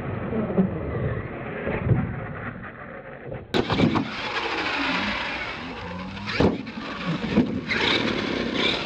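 Radio-controlled monster truck's motor revving up and down as it drives on dirt, with several sharp knocks as the truck lands and tumbles. The sound changes abruptly about a third of the way in.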